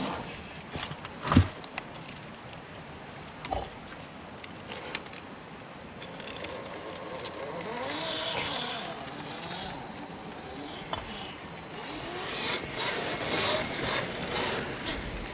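Axial SCX10 III RC rock crawler's electric motor and gears whining, rising and falling in pitch as the throttle is worked over rock, with sharp knocks of the tyres and chassis on stone, the loudest about a second and a half in.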